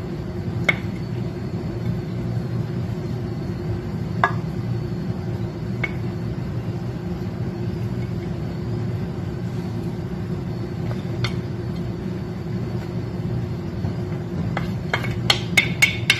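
Steady low background hum, with a few light clicks and taps as a wooden spoon scrapes ground beef off a plastic plate into a glass baking dish, and a quick run of taps near the end.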